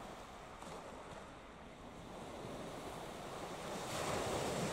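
Wind buffeting the microphone over small waves washing on the shore, growing louder near the end.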